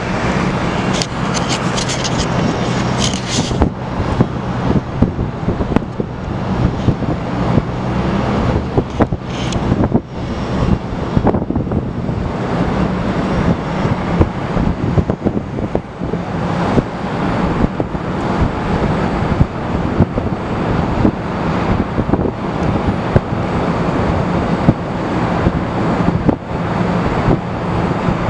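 Wind buffeting the microphone in gusts over a steady low engine drone.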